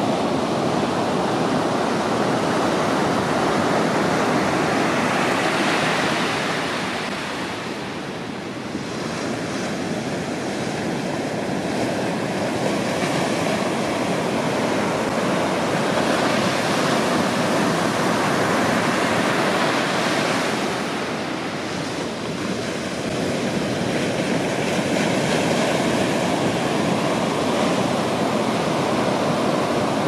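Ocean surf breaking and washing up a sandy beach, a continuous rush of waves that swells and eases, softening briefly about a quarter of the way in and again about three quarters through.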